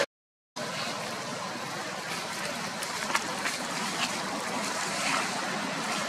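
Steady outdoor background hiss with a few faint crackles of dry leaf litter stirred by foraging monkeys. The sound cuts out completely for about half a second at the start.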